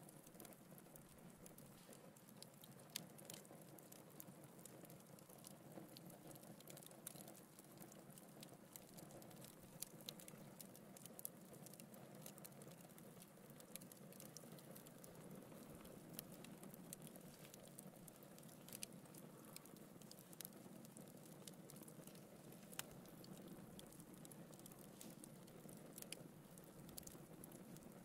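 Split wood logs burning in a fireplace: faint crackling with irregular sharp pops over a low, steady rush of flame.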